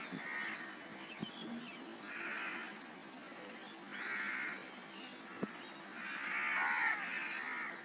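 Faint crow caws, about four separate calls a second or two apart, over a steady high hiss.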